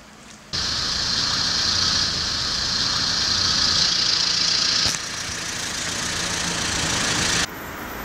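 A car engine running close by, with a strong hiss over a low rumble. It starts abruptly about half a second in and drops sharply in level near the end.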